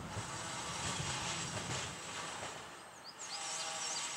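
Outdoor ambience: a low rumble that fades away over the first two to three seconds, then a few short high chirps near the end.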